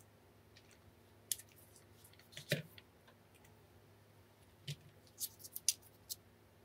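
Paper-wrapped ice cream cones handled on a paper plate: scattered light crinkles and taps of the wrappers, the loudest with a soft thud about two and a half seconds in, then a quick cluster of sharper clicks around five to six seconds.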